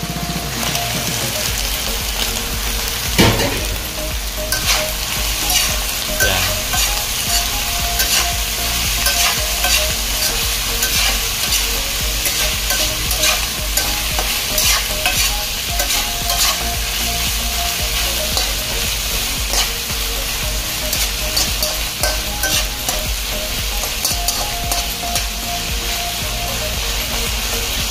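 Shrimp, minced chicken and mushroom slices sizzling in a nonstick frying pan while a spatula stirs and scrapes them, with a louder knock about three seconds in.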